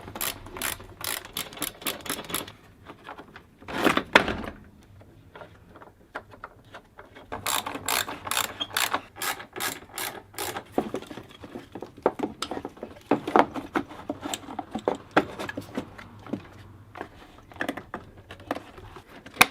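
Socket ratchet clicking in quick runs as bolts are driven in, with a louder clunk of metal parts about four seconds in and scattered knocks of tools and parts.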